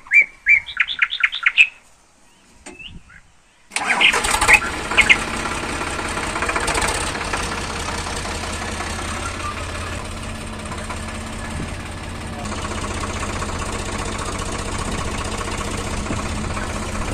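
A bird chirps in a quick run of repeated notes. About four seconds in, the 42 HP diesel engine of a Sonalika DI 42 RX tractor starts with a sudden loud burst and then runs steadily.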